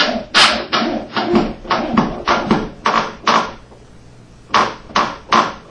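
Power drill driving a wood screw into a pre-drilled oak cabinet frame in quick short bursts, about three a second. It pauses for about a second after three and a half seconds, then gives three more bursts.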